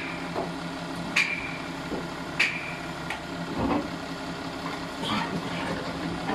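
A few sharp metallic clinks, each with a short ring, as hand tools strike the aluminium housing and parts of a truck gearbox's shift module while it is being fitted. A steady low hum runs underneath.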